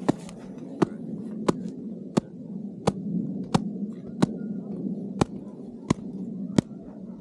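A shovel blade slapping down on top of an isolated snow column, about ten sharp taps in an even rhythm roughly every 0.7 seconds, over a steady low rumble. These are the loading taps of an avalanche column stability test, given to see whether a buried weak layer collapses.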